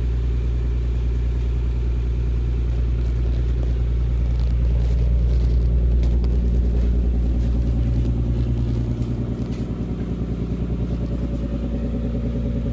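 Nissan 300ZX Twin Turbo's 3.0-litre twin-turbo V6 running at low, steady revs with a deep rumble. Its note shifts and eases off slightly about two-thirds of the way through.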